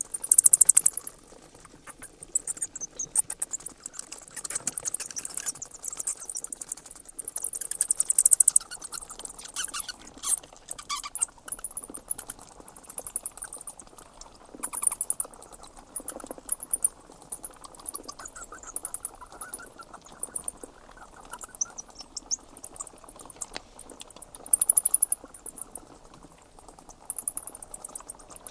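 Bats squeaking in repeated bursts of very high, rapid clicking squeaks, each burst about a second long and coming every couple of seconds.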